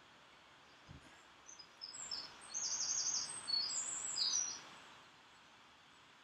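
A songbird singing a quick run of short, high chirps for about three seconds, starting about a second and a half in, over a steady outdoor hiss. There is one soft low thump just before the song.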